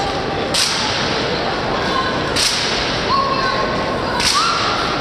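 Sharp slaps of drill rifles being snapped through the manual of arms by a drill team in formation, three crisp cracks about two seconds apart, each ringing in a big, echoing hall.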